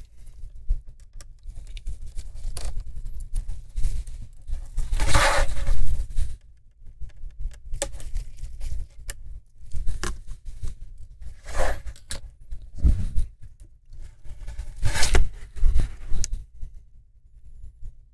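Handling and prying at a laptop's LCD panel and its plastic lid frame: scraping and rustling, with scattered clicks and a few louder scrapes.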